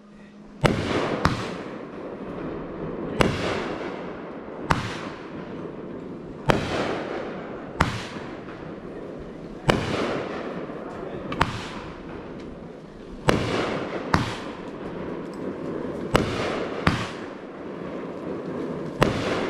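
Consumer aerial firework cake firing in sequence: about a dozen sharp bangs, one every second or two, each trailed by a fizzing hiss from the bursting stars.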